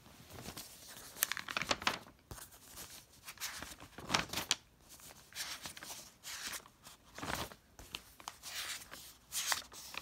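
A sheet of paper rustling and crinkling in irregular bursts as hands lift and fold it back.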